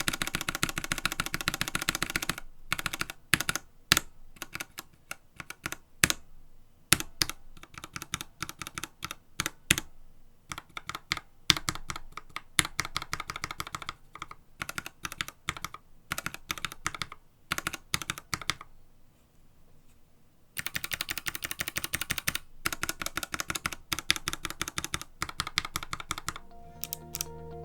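Typing on a mechanical keyboard fitted with retooled Gateron Ink Black linear switches: fast runs of keystrokes alternate with slower single presses, with a short pause about two-thirds of the way through. Background music comes in near the end.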